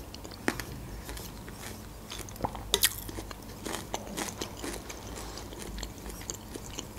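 Close-miked mukbang eating sounds: quiet chewing and mouth noises on spoonfuls of broccoli cream soup, with scattered small clicks and smacks.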